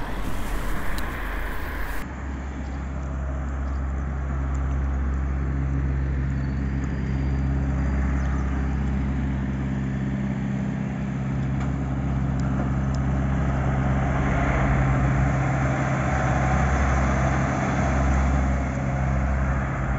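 Road traffic at a busy junction, led by a semi-trailer truck's diesel engine running steadily at low revs, with a low hum under tyre and road noise. The first two seconds are wind and road noise from riding along the street.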